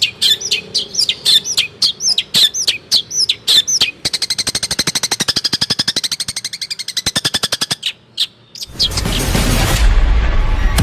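Long-tailed shrike (cendet) singing: a run of sharp, repeated descending notes, about three a second, then a fast even rattling chatter. Near the end a loud noisy swell with a deep rumble comes in.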